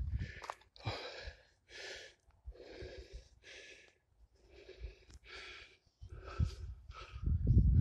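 A hiker's heavy breathing close to the microphone, short puffs in and out about once a second, with footsteps on the dirt trail thudding at the start and again near the end.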